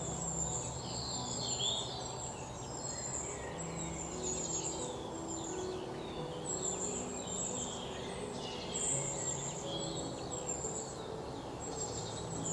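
Several songbirds chirping and trilling at once, a continuous chorus of overlapping short high calls and quick falling notes.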